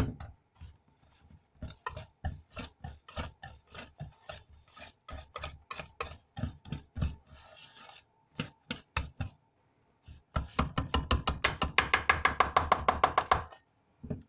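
A wire whisk scraping and beating mashed potato against a stainless steel bowl. First come slow, uneven strokes, then a run of fast, even whisking for about three seconds near the end. A loud knock opens the sound.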